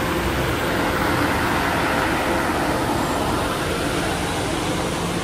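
Busy street traffic noise: a steady, continuous rush of passing vehicles with a faint steady hum underneath.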